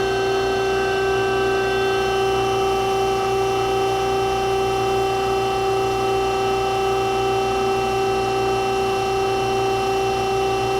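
Harig EZ Surf II surface grinder running with its grinding wheel spindle turning and hydraulic system on: a steady hum with a clear, even whine that holds unchanged while the axes are jogged.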